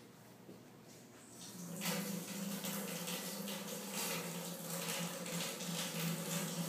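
Water tap turned on, water running and splashing into a sink drain, starting about two seconds in, with a steady low hum under it.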